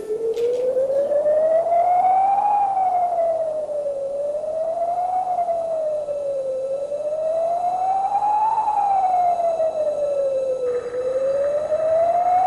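A siren-like wailing tone that slides slowly up and down, rising and falling about four times, each sweep taking a few seconds.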